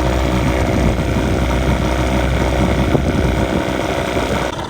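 Two-cylinder two-stroke 25 hp Johnson outboard motor running, misfiring and dropping a cylinder, so it runs on one cylinder. The low rumble drops off near the end.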